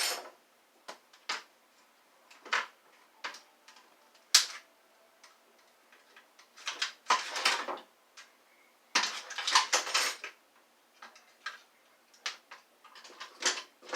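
Plastic and metal parts of a vacuum cleaner wand being handled and pulled apart: scattered sharp clicks and knocks over the first few seconds, then longer bouts of rattling and scraping.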